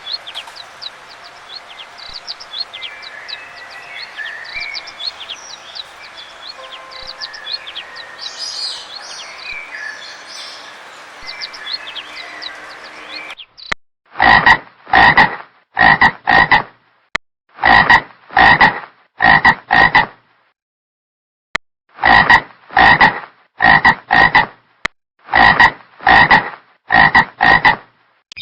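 Small birds chirp over an outdoor background for roughly the first half. Then a frog croaks loudly over and over, its calls mostly coming in twos, with a short pause about two-thirds of the way through.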